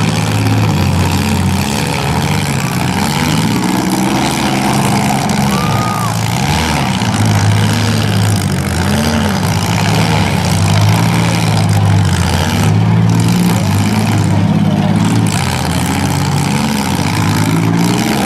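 Demolition derby mini cars' engines running loudly together, revving up and dropping back over and over as the cars manoeuvre on the dirt.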